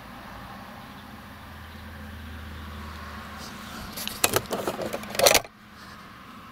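A steady low hum inside a minivan's cabin, broken about four seconds in by a second and a half of clattering clicks and rattles that end in one loud knock; after it the deepest part of the hum drops away.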